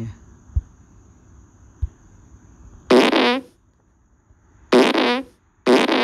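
Fart sound effect playing from a phone: three short, loud bursts with a bending pitch, the first about three seconds in and two more near the end. Two soft thumps come before them.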